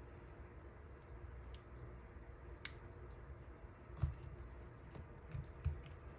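Faint small clicks of metal lock picks and a dimple lock cylinder being worked by hand, with a few soft knocks of handling in the second half.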